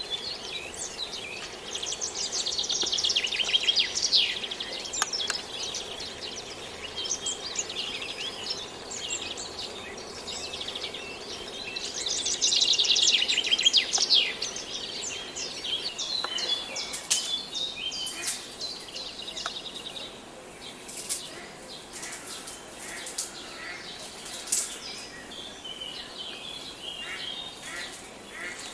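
Several forest birds singing and chirping together. There is a loud rapid trill about two seconds in and another about twelve seconds in, then many short scattered chirps.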